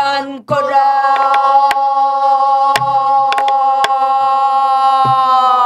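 Pansori singing: a class sings one long held note in unison, sagging slightly near the end, while a buk barrel drum keeps time, a stick clacking sharply on its wooden rim with a couple of low thuds on the drumhead.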